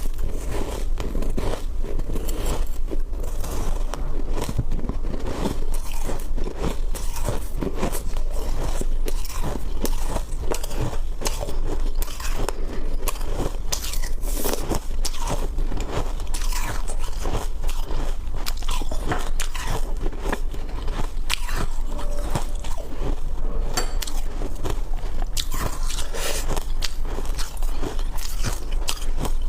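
Ice being bitten and chewed, close-miked, in a continuous run of crisp crunches.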